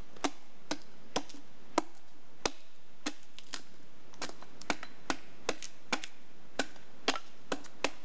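Blade striking down the side of an upright spruce log in a steady run of sharp knocks, about two a second, shaving curls off one side of the log as the first step in making a Swedish candle.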